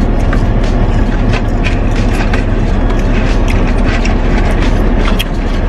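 Steady low rumble inside a car cabin with the engine running while parked, with scattered small clicks and rustles of people eating.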